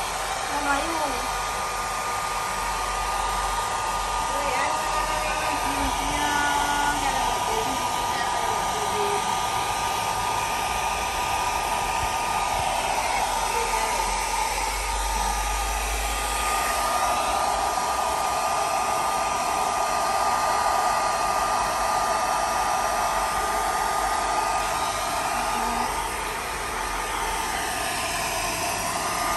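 Small handheld hair dryer running steadily, blowing air over a baby monkey's fur: a constant rush of air with a thin steady whine. The rush changes in tone about halfway through and again near the end as the dryer is moved.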